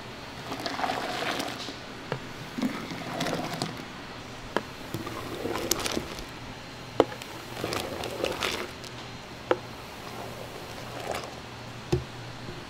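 A thick creamy mixture is poured from a stainless steel bowl through a mesh strainer into a steel pot, in several pours of a second or so each. Sharp metal clinks of bowl, strainer and pot rims come about five times between the pours.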